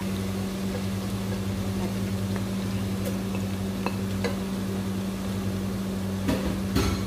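An electric kitchen appliance switching on with an abrupt start and running with a steady low hum. There are a few faint ticks, then a couple of louder knocks near the end.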